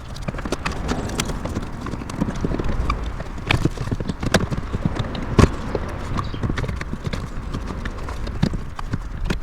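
Irregular hollow knocks and clicks, one sharper knock a little past the middle, over a steady low rumble.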